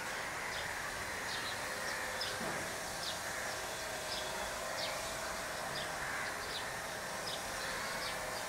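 Outdoor ambience: a small bird chirping over and over in short high notes, about two a second, over a steady background hum.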